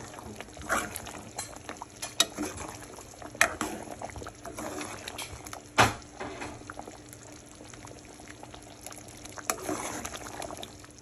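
Large spoon stirring and ladling thick oxtail stew gravy in a pot, the liquid sloshing, with scattered knocks and scrapes of the spoon against the pot. The sharpest knock comes about six seconds in.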